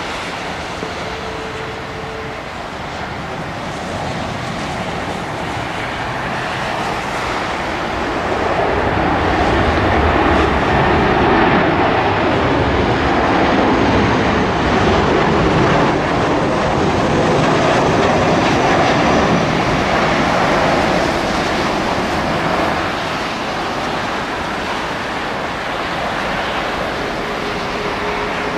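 Boeing 737's CFM56 jet engines on final approach: a steady rushing noise that swells about eight seconds in as the airliner passes, then eases off a little as it nears touchdown.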